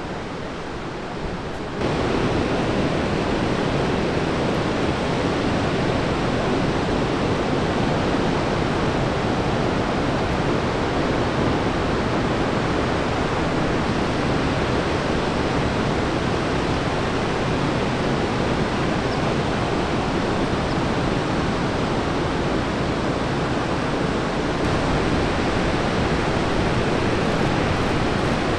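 Ocean surf: a steady rush of breaking waves and whitewater, stepping up in level about two seconds in.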